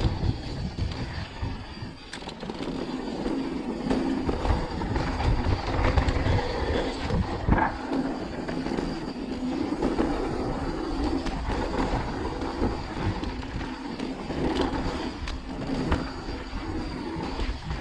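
Mountain bike descending a dirt trail at speed: tyres rolling over dirt and stones, with the bike rattling over bumps and a sharper knock about halfway through. Rumbling wind noise on the handlebar-mounted camera.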